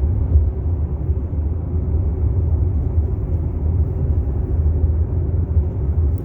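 Steady low rumble of a car driving on a highway, heard from inside the cabin.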